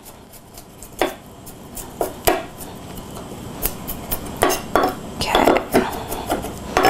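Chef's knife chopping garlic on a wooden cutting board: a few separate knocks, then a quicker run of chops in the second half.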